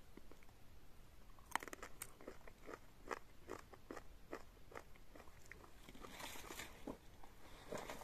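A person biting into and chewing a small tomato-like wild fruit: faint, irregular crunching clicks, a couple a second.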